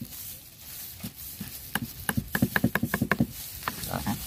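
Cleaver chopping green onions on a round wooden chopping block: after a quieter first second and a half, a fast run of sharp knocks, about six a second, then a few more near the end.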